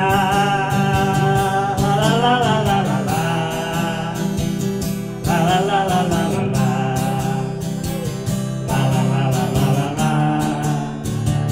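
A man singing long held notes, without clear words, while strumming an acoustic guitar.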